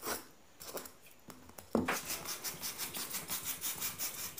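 Utility knife blade sawing through a styrofoam ball: a few separate scraping strokes, then from about two seconds in a steady back-and-forth run of about four strokes a second.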